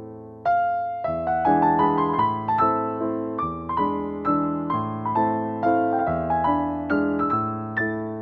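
Background music: a melody of struck notes, each fading away, over low bass notes.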